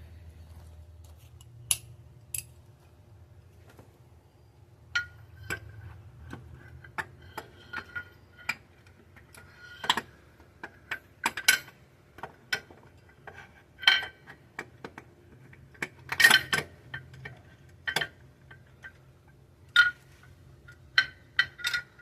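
Irregular metallic clicks and clinks of hand tools against engine parts while working to get at the second knock sensor in the engine valley, some clinks ringing briefly.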